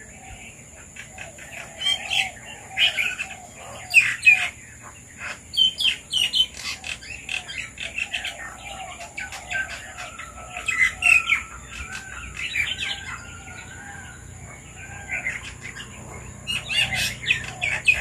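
Red-vented bulbuls calling, in quick bursts of short chirps, with one longer held note about ten seconds in. A steady high-pitched hum runs underneath.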